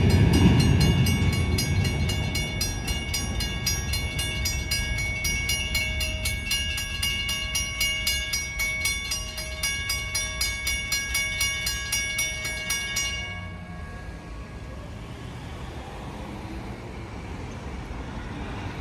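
Railroad crossing warning bell ringing in rapid, even strokes over the fading rumble of the last freight cars rolling past. The bell stops suddenly about thirteen seconds in, leaving passing road traffic.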